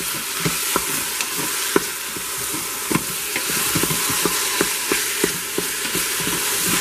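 Raw ground chicken and onions sizzling in a hot stainless steel cooker pot while a wooden spatula breaks the meat up, scraping and knocking against the pot about twice a second over a steady frying hiss.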